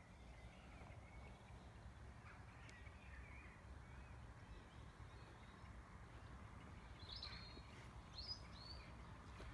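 Near silence with a faint low rumble and a few faint distant bird calls, the clearest about seven to eight seconds in.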